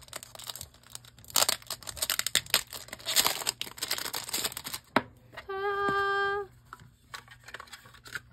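Plastic film wrapping crinkling and tearing as it is pulled off a small tin card case, in dense bursts of crackle. About five and a half seconds in, a steady hummed note lasts about a second.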